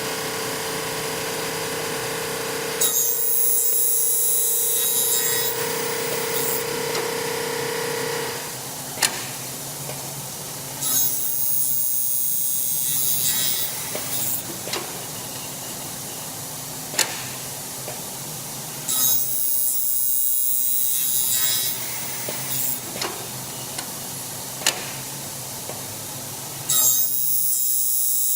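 Double-head aluminium cutting saw (F55) cutting Xingfa aluminium profile: four cuts about eight seconds apart, each a high-pitched hissing cutting noise lasting two to three seconds, with the saw motor running between cuts.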